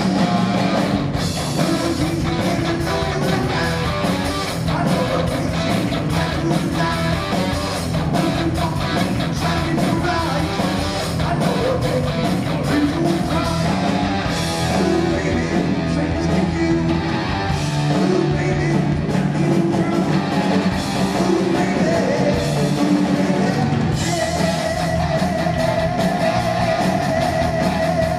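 Heavy metal band playing live: distorted electric guitar, bass guitar and drum kit, with a singer on vocals.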